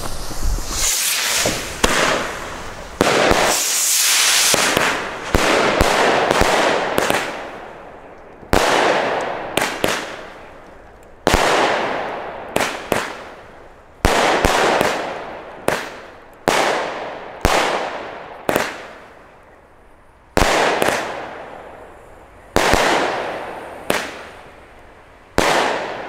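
Weco Poison 16-shot firework battery firing its shots one after another at uneven intervals. Each shot is a sharp report that trails off over about a second.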